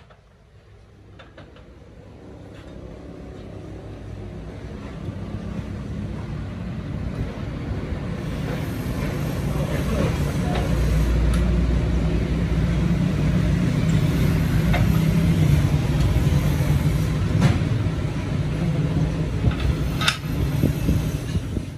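A low, steady engine rumble that swells over the first ten seconds and then holds, with a few sharp metallic clinks near the end.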